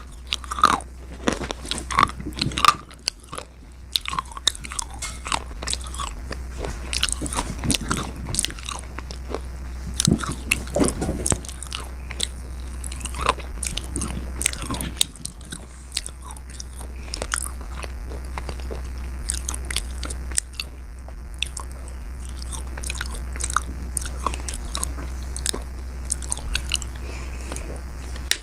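Slate being bitten and chewed close to the microphone: many irregular sharp crunches and gritty grinding, over a steady low hum.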